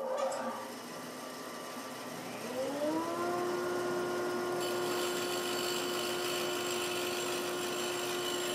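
Bandsaw switched on, its motor rising in pitch for the first few seconds before settling into a steady hum. From about halfway, a hiss joins it as the blade cuts the end of a wooden board square.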